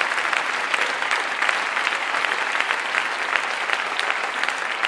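Crowd applauding: many hands clapping in a dense, steady clatter.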